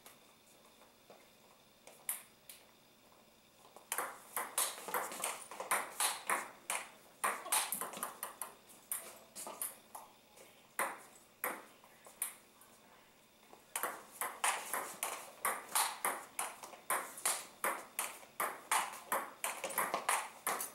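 Table tennis rallies: a celluloid ball clicking off paddles and bouncing on the table in quick, regular knocks, about two or three a second. A couple of single hits come about two seconds in, then one long rally runs to about twelve seconds, and after a short pause a second rally starts at about fourteen seconds.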